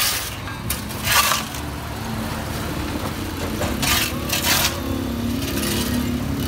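Metal shovels and rakes scraping on concrete and gravel as rubbish and silt are dug out of a roadside drain, in several short, harsh strokes over a steady low street rumble.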